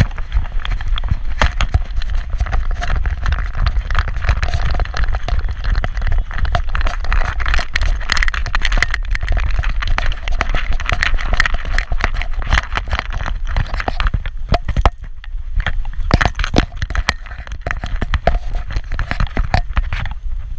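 Metal harness and leash clip and dog tags clinking and jangling with each step of a trotting small dog, heard up close from a camera strapped to its back, over a steady low rumble of street traffic.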